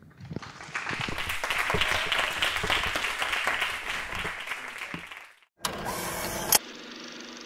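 An audience applauding for about five seconds, swelling and then dying away. After a sudden break there is a short burst of noise ending in a click, then a steady hum.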